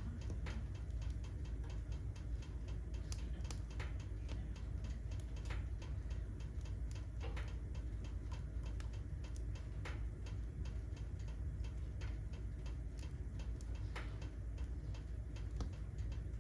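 Wood fire in a fireplace crackling: many small irregular ticks and pops, a few louder ones, over a low steady rumble.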